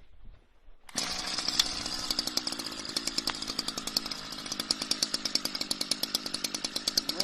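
Small two-stroke engine running fast with a rapid, even buzzing pulse, starting abruptly about a second in.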